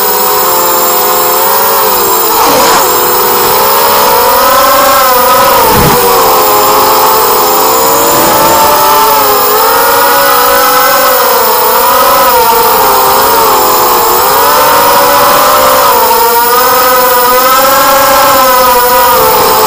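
Quadcopter with four DYS BE1806 2300kv brushless motors spinning HQ 4045 bullnose props, running with a continuous whine whose pitch rises and falls with the throttle. Brief gusty rushes come about two and a half and six seconds in.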